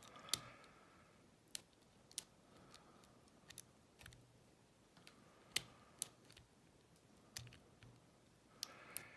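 Lock pick working the pin stack of an old Yale pin-tumbler padlock under light tension, giving about a dozen sharp, irregular metallic clicks.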